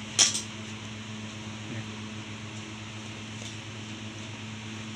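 Steady mechanical hum with a low, even tone. One sharp click about a quarter second in, and a fainter tap near two seconds.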